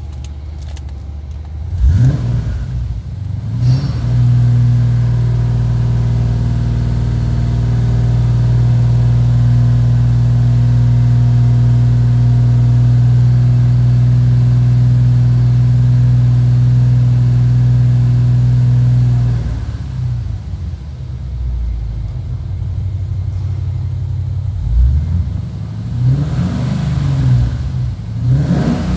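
Holden Commodore SS's 6.0-litre V8 running: blipped twice, then held at a steady raised speed of just over 2,000 rpm for about fifteen seconds. It drops back to idle, then is blipped several more times near the end.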